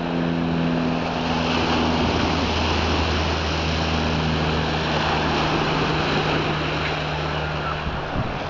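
Choppy sea and wind on an exposed pier: a steady, dense rushing noise of waves and wind, with a low steady hum underneath that fades out near the end.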